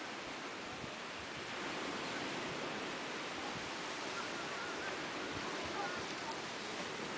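Steady wash of gentle surf breaking on a sandy beach.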